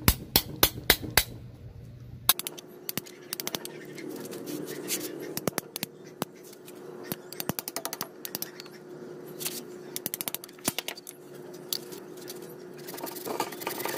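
Knife blade cutting and prying into the wood of a branch stub at a bonsai trunk's base: a quick run of sharp clicks in the first second or so, then scattered ones over a faint steady hum. A denser rasping starts near the end.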